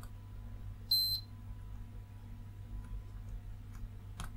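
Digital multimeter's continuity beeper giving one short, high beep about a second in as the probe touches a pin, signalling a low-resistance connection between the probed points. A faint steady hum lies underneath.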